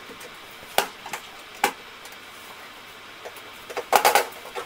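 Sharp plastic clicks from the Nissan Qashqai J10 tailgate handle trim being pressed onto the tailgate by hand: a few single clicks in the first two seconds, then a quick cluster of clicks near the end as its clips snap into place.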